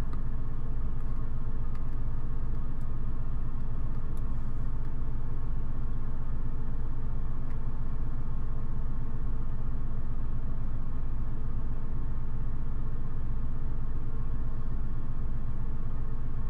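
A steady low mechanical hum with a rumble, unchanging in pitch and level.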